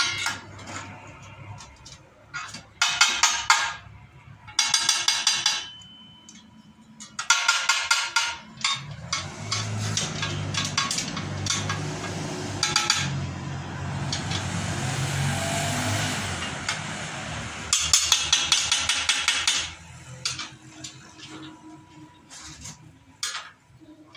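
Steel rip fence of a table saw being slid along the metal table and set to width, in several bursts of metal scraping and clatter. A low droning hum swells and fades in the middle.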